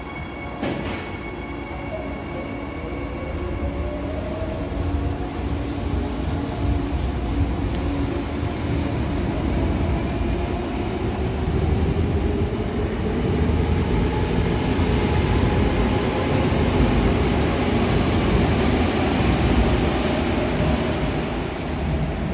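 A Seoul Line 3 GEC chopper-control electric train pulling out of the station. Its traction motors whine and rise in pitch as it accelerates, while the wheel and rail noise grows louder. Near the end the sound falls away as the last cars clear the platform.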